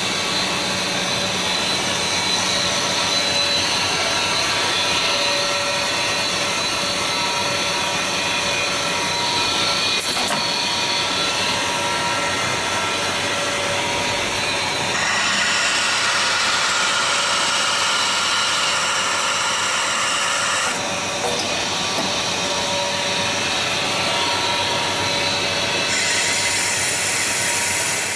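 1997 KNOPP Duplex double-sided glass drilling machine running, a steady mechanical whine with several steady tones over a hiss. Its sound shifts and grows brighter about halfway through, dips briefly, then changes again near the end.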